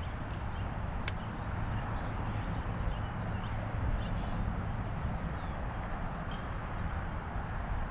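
Wind buffeting the microphone outdoors by a pond, an uneven low rumble, with one sharp click about a second in.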